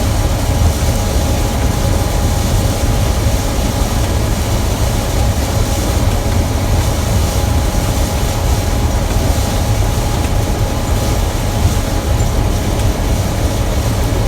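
Gleaner M2 combine running while harvesting soybeans, heard from inside its cab: a loud, steady machinery drone with a deep rumble and a couple of steady whining tones.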